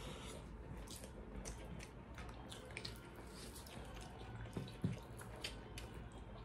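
Faint, close eating sounds from two people eating rice and pork curry by hand: irregular small wet clicks of chewing and lip smacking and of fingers squishing rice, with one louder thump just under five seconds in.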